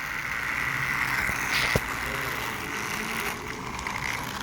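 Battery-powered toy train engine running, its small electric motor and gears whirring steadily, with one sharp click a little under two seconds in. The engine is struggling with wheel slip.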